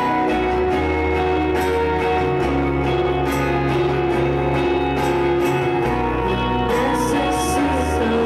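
Live pop song: strummed acoustic guitar over a deep bass line, with a woman singing.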